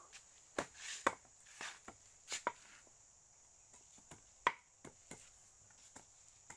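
A knife chopping sugar cane: a series of sharp knocks at uneven intervals, the loudest about four and a half seconds in.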